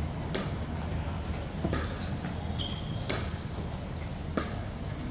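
Pickleball paddles striking a plastic ball in a soft rally at the net: four sharp pocks about a second and a third apart, over the steady hum of a large covered hall.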